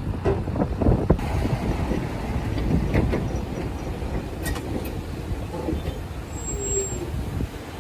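Heavy earth-moving machinery running with a steady low rumble, with several loud metallic clanks in the first second, another around three seconds in, and a brief squeal near the end.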